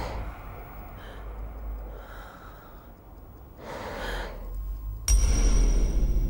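A woman breathing heavily, with a sharp frightened gasp about four seconds in. About five seconds in, a sudden loud low boom with a thin high ringing tone cuts in.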